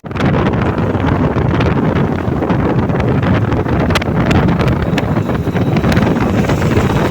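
Loud wind buffeting the microphone, with scattered small clicks and knocks.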